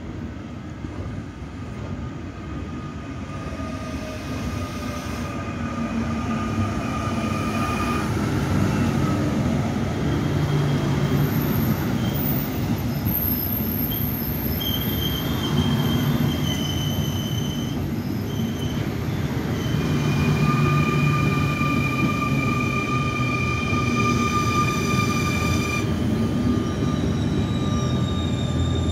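An SNCF Z2N double-deck electric multiple unit rolling slowly through the station beside the platform. Its rumble grows over the first several seconds, and high steady wheel squeals come and go through the passage.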